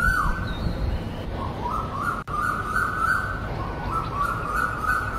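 A bird calling over and over, each call a short high note that slides downward, over a steady low rumble.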